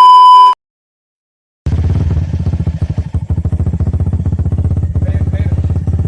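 A loud steady beep for about half a second, then a second of silence, then a motorcycle engine running with a fast, even firing pulse.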